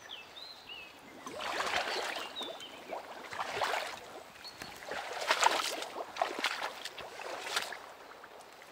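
Water splashing and sloshing in four irregular bursts. A bird chirps a few times near the start.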